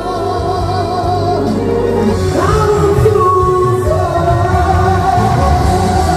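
A song sung live over a band backing track played through PA speakers. The voice holds long notes with vibrato and slides up to a new note about two and a half seconds in, over a steady bass.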